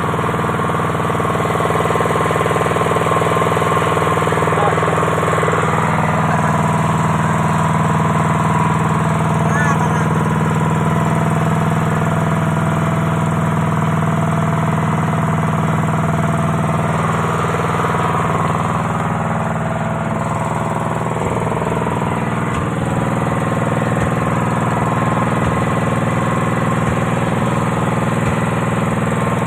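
An engine running steadily at constant speed, an unbroken drone whose tone shifts slightly about six seconds in.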